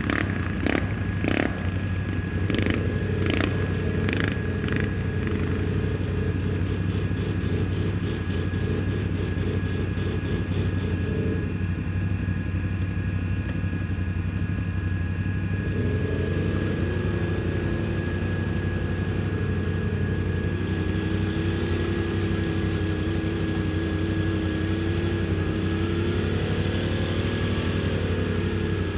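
Quad (ATV) engine running steadily while under way, with a few sharp knocks in the first five seconds. A higher whine that rises and falls comes in about halfway through.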